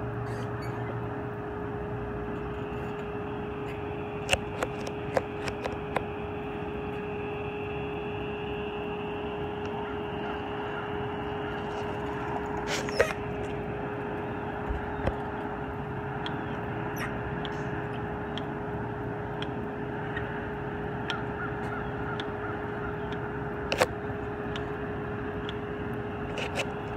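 Fire engine's diesel engine running steadily as the truck rolls out of the station bay, a constant drone with a few short sharp sounds scattered through it.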